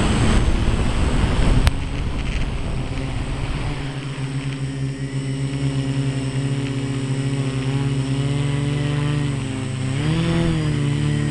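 Quadcopter's electric motors and propellers heard from the camera on board. A loud rushing noise comes first, a sharp click follows, then from about two seconds in a steady buzzing hum whose pitch swells up and back down once near the end.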